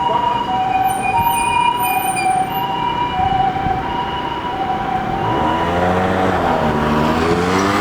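Ambulance's electronic TCD siren sounding the two-tone hi-lo 'pee-poh', alternating between two pitches about every half second. About five seconds in, a lower siren tone joins, rising and falling in slow sweeps.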